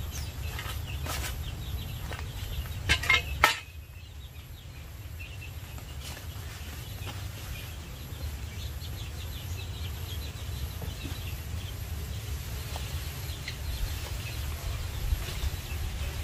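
Outdoor orchard ambience: a steady low rumble with birds chirping. A few sharp knocks come in the first seconds, the loudest about three seconds in.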